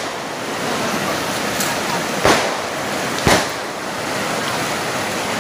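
Fast shallow river rapids rushing over rocks, a steady noise of water, with two sharp bangs about a second apart near the middle.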